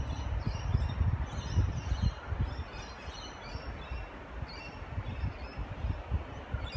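Small birds chirping in many short, high calls, over a low, gusty rumble.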